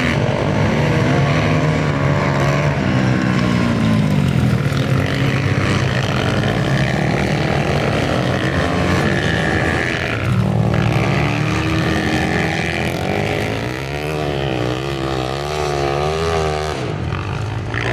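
Several small youth dirt bike engines racing at once, their pitch rising and falling continuously as they rev up and back off.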